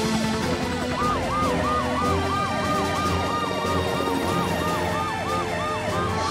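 Cartoon emergency-vehicle sirens, several at once, wailing in quick rising-and-falling sweeps. A higher siren joins about a second in, cycling about three times a second.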